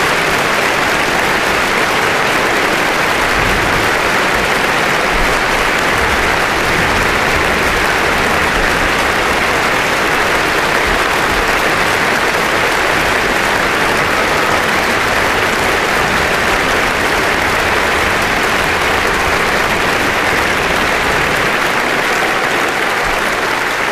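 Concert audience applauding, a steady dense clapping.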